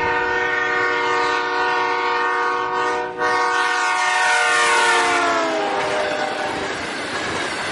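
Electric commuter train's horn sounding long as the train approaches, with a short break about three seconds in. Its pitch drops as the train passes, the Doppler effect, and the horn stops about six seconds in, leaving the rumble of the passing cars.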